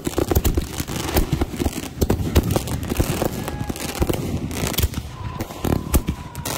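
Consumer fireworks going off close by: a dense, irregular run of sharp pops and crackles, with a faint thin whistle through the last second and a half.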